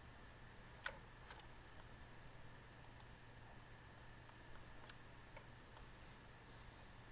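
Near silence: a low steady hum with a few faint, sharp clicks, the loudest about a second in.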